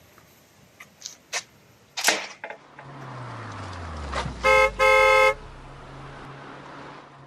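Car horn sounding twice, a short toot then a longer honk, over a vehicle's engine running low. A few sharp clicks and knocks come before it.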